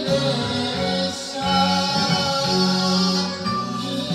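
A man singing an enka song into a karaoke microphone over the backing track, holding long notes.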